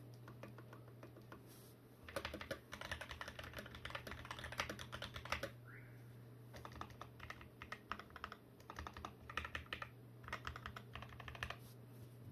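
XD84 Pro mechanical keyboard with lubed Gateron Black linear switches being typed on: rapid runs of keystrokes in several bursts, with short pauses between them.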